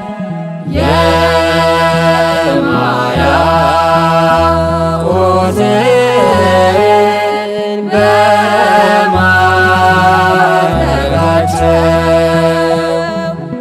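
Ethiopian Orthodox church choir singing a hymn in Amharic together, voices gliding between held notes over deep sustained bass notes that change pitch every second or two.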